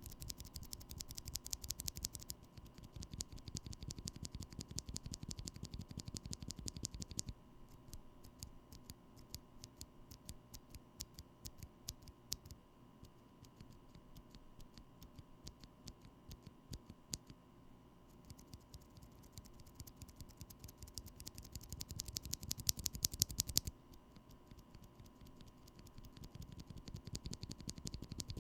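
Typing on a mechanical keyboard fitted with lubed Drop Invyr Holy Panda tactile switches: a rapid run of keystroke clacks, thick in some stretches and sparser in others.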